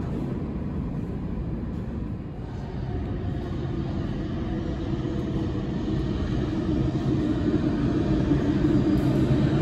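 New York City subway train approaching through the tunnel, a steady rumble that grows gradually louder.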